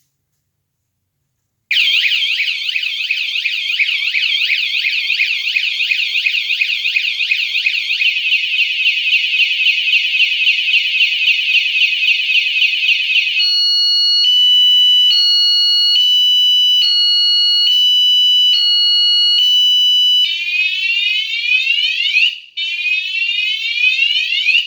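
Motion-triggered bike alarm going off, amazingly loud, starting a couple of seconds in. It cycles through its siren tones: a fast warble, then a quicker warble, then pulsing beeps, then repeated rising whoops.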